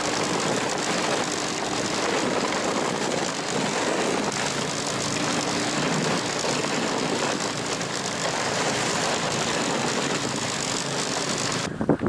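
A vehicle engine running steadily under a loud rushing noise of travel, which cuts off abruptly near the end.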